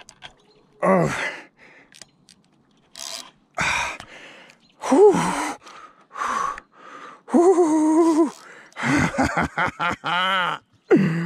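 A man's gasps, groans and breathy exclamations ('oh', 'whew') as he fights a large salmon on a spinning rod, with a long held groan a little past the middle.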